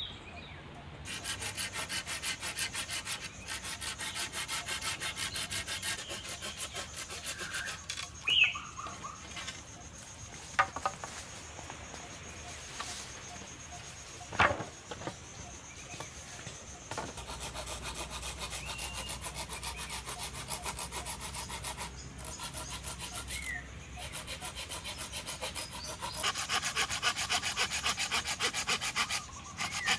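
Hand saw cutting through wooden poles in rapid back-and-forth strokes. The sawing pauses for a while in the middle, where a few sharp knocks are heard as poles are set down, then resumes and grows louder near the end.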